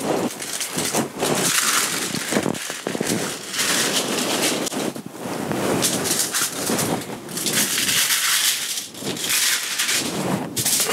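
Aluminium foil crinkling and rustling in irregular bursts as a boned leg of lamb coated in spice paste is rubbed, lifted and turned over on it.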